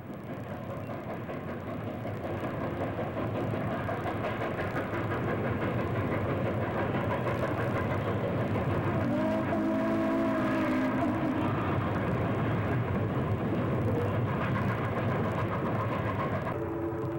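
Steam passenger train running past, its steady rumble building over the first few seconds. A multi-tone chime whistle sounds for about two seconds in the middle, and another whistle starts near the end.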